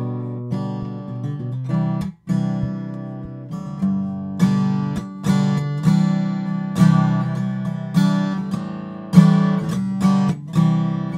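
Acoustic guitar strumming chords, played back as a studio microphone test recording. Accented strums come roughly every three-quarters of a second, with a sudden momentary break about two seconds in.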